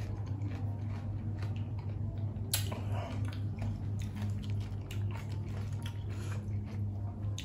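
Close-up crunchy chewing of raw bitter melon, many small crackling clicks with a sharper crunch about two and a half seconds in, over a steady low hum.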